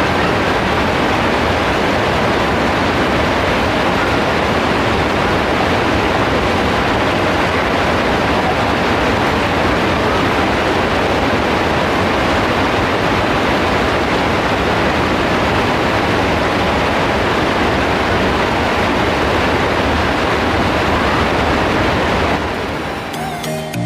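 Heavy rain pouring steadily, a dense even hiss that fades away near the end.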